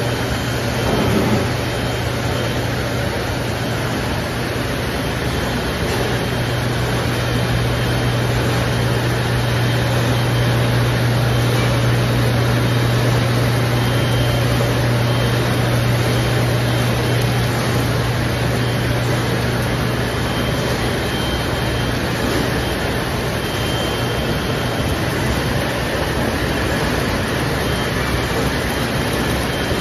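Paper straw production-line machinery running steadily: a constant low hum over even mechanical noise, with no distinct strokes or clicks.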